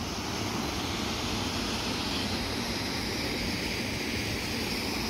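Steady rushing of a mountain stream flowing over rocks, an even noise that neither rises nor falls.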